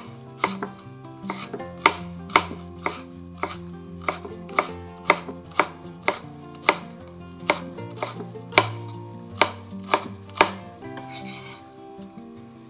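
Chef's knife chopping green onion on a wooden cutting board: steady chops about two a second, stopping near the end.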